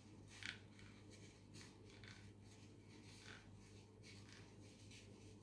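Faint, irregular rustling and crinkling of paper being rolled tightly around a thin wooden stick by hand, with a couple of slightly louder crinkles, over a low steady hum.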